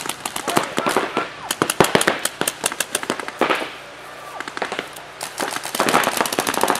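Paintball markers firing rapid strings of shots, several players at once, with a lull a little past the middle before the firing picks up again.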